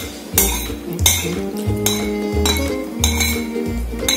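Metal spoon scraping and clinking against a bowl as the last of the porridge is scooped from the bottom: sharp ringing clinks every second or so. Background music with a steady beat plays throughout.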